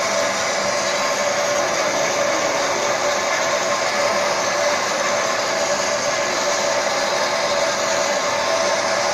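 Small peanut-oil refining equipment running, giving a steady, even machine whir with a faint steady hum in it.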